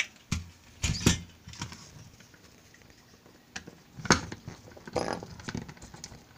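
Floppy drive's sheet-metal casing knocking on a workbench and a screwdriver clicking against it: a handful of separate knocks, loudest about a second in and about four seconds in.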